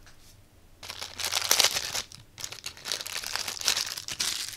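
Crinkly rustling and small clicks from hands handling a leather belt strip for a metal model kit. It starts about a second in.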